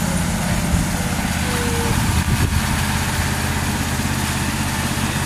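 A small engine running steadily at an even pace, the motor of a ride-on miniature train locomotive.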